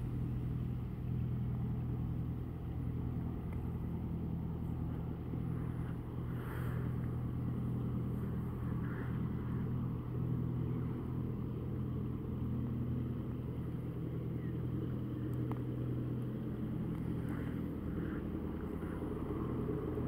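A motor cruiser's engine running with a steady low drone as the boat approaches along the river.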